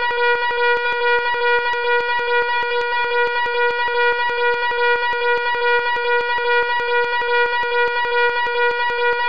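Fire alarm sounding continuously: one loud, steady buzzing horn tone with a fast, even pulse.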